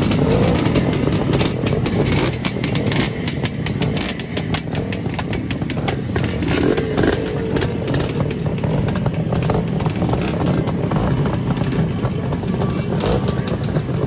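Several classic Bultaco motorcycles' two-stroke single-cylinder engines running together, a fast, ragged exhaust beat.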